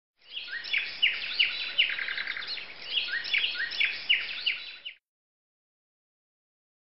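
Birdsong: quick, repeated descending chirps and twitters over a light hiss, stopping abruptly about five seconds in.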